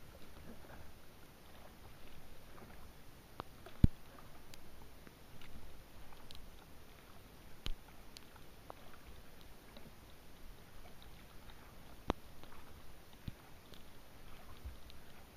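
Kayak gliding on a calm lake in light rain: faint water sounds and scattered drips, with a few sharp taps on the hull, the loudest about four seconds in and others near eight and twelve seconds.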